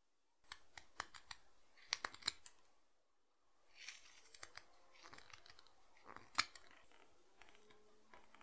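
Small whittling knife cutting into dry branch wood. First comes a quick series of sharp snapping cuts, then a short pause, then longer scraping paring cuts with one loud snap of a chip coming away about six seconds in.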